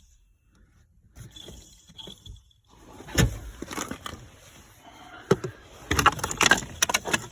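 A string of sharp knocks and clattering taps from the van's blower motor being handled and knocked about while plugged in but not yet running, thickest and loudest near the end.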